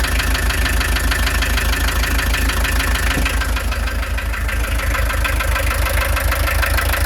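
1.6-litre turbodiesel engine idling steadily, with an even, rapid diesel clatter.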